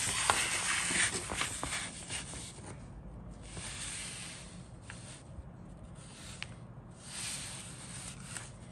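Paper instruction sheet rustling and crinkling as it is handled and moved. There are three bursts: the loudest at the start with a few sharp crackles, then shorter ones around four and seven seconds in.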